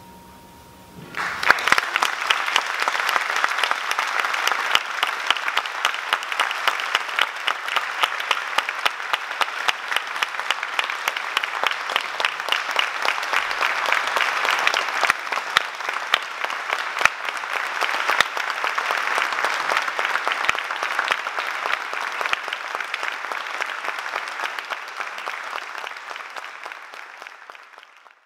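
A final soft held note dies away, and about a second in the concert audience breaks into applause. The clapping stays dense and steady, then thins and fades out near the end.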